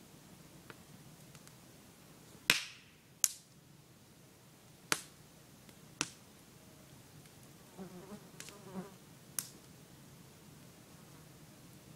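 Wood campfire crackling, with about five sharp pops spread through, the loudest about two and a half seconds in. An insect buzzes briefly past about eight seconds in.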